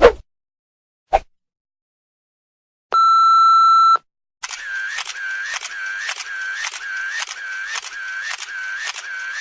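Editing sound effects played in sequence: a quick pop, a second short pop about a second in, then a steady one-second censor-style beep. After a short gap comes a repeating electronic effect, a click followed by a wavering tone about twice a second, running to the end.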